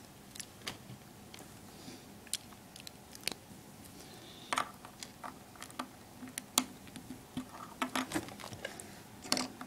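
Small plastic LEGO pieces being handled and pressed together by hand, making quiet irregular clicks and snaps that come thicker near the end.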